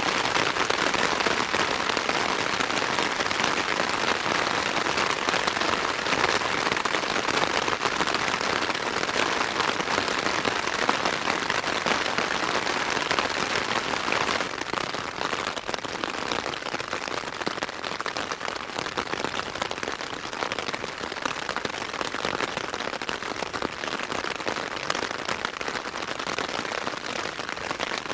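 Rain falling on a tent's flysheet, heard from inside the tent: a dense, steady patter of drops on the fabric, a little lighter from about halfway through.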